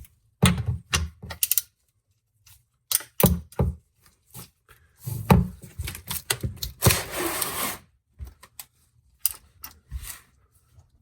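3/8-drive ratchet and 1/2-inch socket on an oil pan drain plug: a string of knocks and ratchet clicks, with a second-long rattle about seven seconds in. The plug breaks loose easily, not over-tightened.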